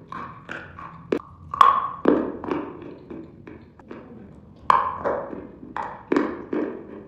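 Almonds being crunched and chewed in the mouth: a run of crisp crunches, about two to three a second, with louder sharp cracks about a second and a half in and again near five seconds.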